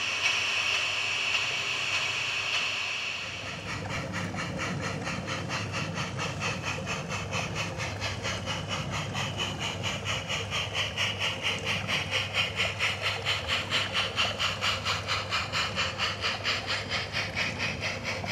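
Battery-powered garden-scale model steam locomotive and train: a steady hiss for about the first three seconds, then a regular rhythmic beat of about four a second over a steady low hum as the train runs past, loudest about two-thirds of the way through.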